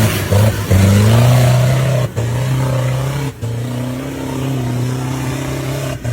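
Off-road 4x4 engine revving hard: the pitch climbs in the first second, then holds at high revs under load, broken off sharply for an instant a few times.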